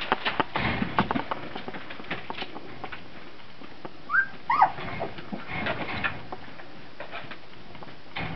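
Three-week-old Brittany puppies in their pen: scattered scuffling and clicking throughout, with two or three short high squeaks about four seconds in.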